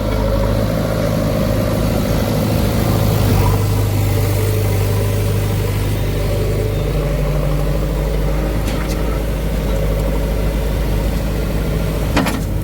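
Heavy diesel engine of a backhoe loader or tractor running steadily, its pitch shifting about seven seconds in as the engine speed changes. A single sharp clank near the end.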